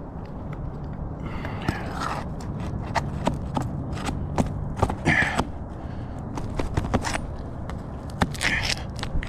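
Sharp clicks and knocks of hand tools on asphalt roof shingles, with three short scrapes, as a shingle is worked loose for removal. A low rumble runs underneath.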